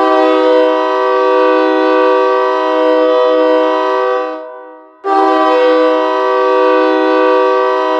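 Hockey goal horn, a knockoff of a Nathan K3LA multi-chime air horn, sounding a steady chord to signal a goal. Two long blasts: the first lasts about four seconds and fades out, and the second starts about five seconds in and is still sounding at the end.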